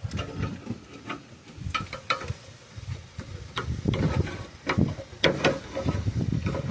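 Irregular metal knocks, clanks and scraping as a Ford 302 V8, hanging from an engine hoist and caught on its exhaust manifold, is pried and worked free. The knocks come thicker, over a low rumble, from about four seconds in.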